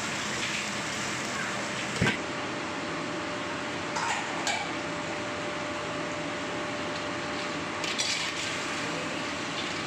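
Steady background noise of a commercial kitchen, with a sharp knock about two seconds in and a few light metal clinks of a ladle against pan and plate around four and eight seconds in.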